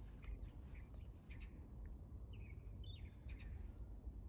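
Faint, scattered chirps of small birds, a dozen or so short calls, over a steady low rumble of outdoor background noise.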